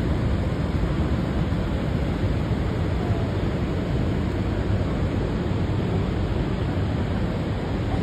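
Steady rushing roar of the Rhine Falls and the churning river water, with wind buffeting the microphone.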